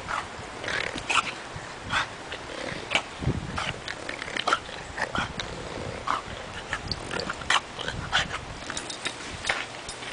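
A French bulldog growling in short, irregular spurts, one or two a second, as it leaps at and hangs by its teeth from a hanging rope.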